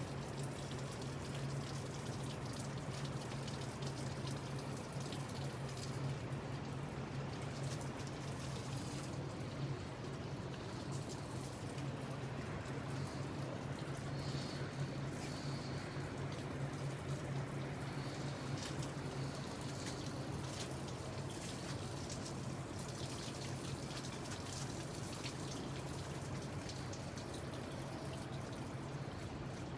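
Water spattering and trickling steadily against a door under a flood test, with a steady low hum underneath.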